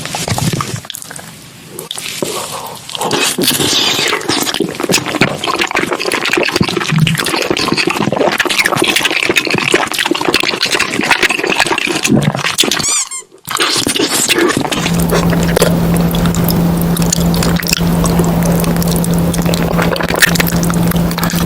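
Close-miked eating sounds of cheesy food: wet chewing, smacking and squelching, a dense run of small wet clicks. About 13 seconds in it drops out briefly, and after that a steady low hum runs under the chewing.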